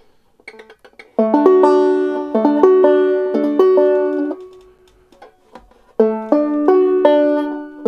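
Five-string banjo in open D tuning played clawhammer style: a D major chord shape fretted up the neck with the first string left open. It is picked through in a short rhythmic phrase starting about a second in that rings out and fades, then played again about six seconds in.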